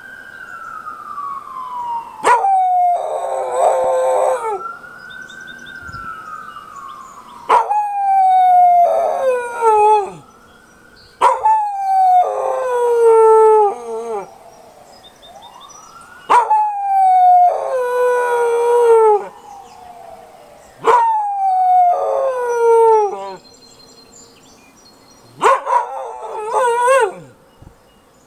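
Keeshond howling in about six long bouts a few seconds apart, each howl wavering and sliding down in pitch. Under and between the howls, a fainter emergency-vehicle siren wails, rising and falling over and over. The howls stop near the end.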